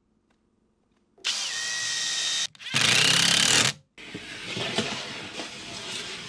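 Power tool running in two short bursts starting about a second in, the second louder, the first with a thin whine; then a quieter scratchy rubbing noise on wood, like sanding.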